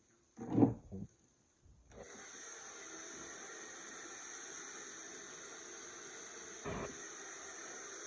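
A short, loud low sound about half a second in, then a hair dryer switched on about two seconds in, running with a steady airy hiss.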